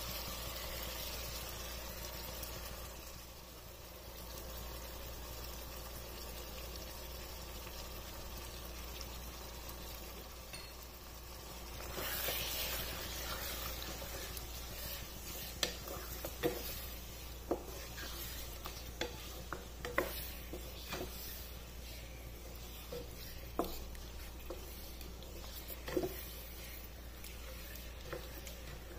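Mutton sizzling in oil in a karahi as a cup of yogurt is stirred in with a wooden spatula. The frying swells about twelve seconds in, and from then on the spatula knocks and scrapes against the pan in sharp, irregular clicks.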